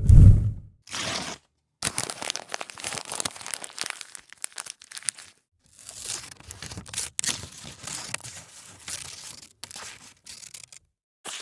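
A string of separate short sound effects with brief silences between them: a deep hit right at the start, then several stretches of crackly tearing and crinkling, like paper being ripped and crumpled.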